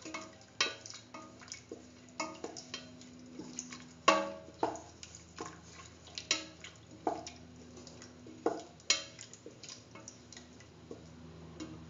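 Wooden spatula stirring a thin vegetable stew in a metal pot, knocking and scraping against the pot in irregular taps and clicks, with the loudest knock about four seconds in.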